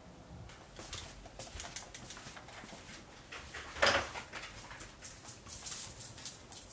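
Dogs' claws clicking on a wooden floor as a Shiba Inu and a Pomeranian trot along, with quick scattered taps through the second half. A brief louder sound comes just before that, about four seconds in.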